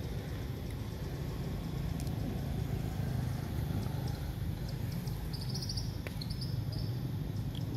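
Steady low outdoor rumble, with a few faint high chirps a little past the middle.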